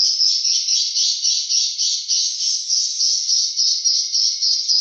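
Swiftlets twittering: a dense, high chirping that pulses about four or five times a second without a break.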